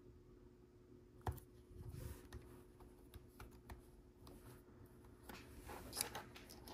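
Faint, sparse clicks and light rustling of small plastic LEGO pieces being handled, with one sharper click a little over a second in and a few quick ticks near the end.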